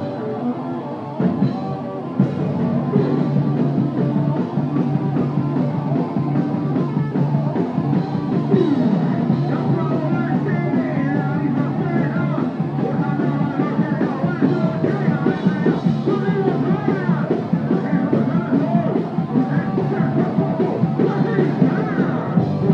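Live rock band playing: electric guitar, bass and drum kit with a singer, the whole band getting louder about two seconds in.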